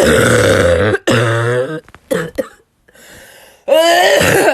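A woman's loud barking cough, coughing four times: two long coughs back to back, a short one about two seconds in, and another long one near the end.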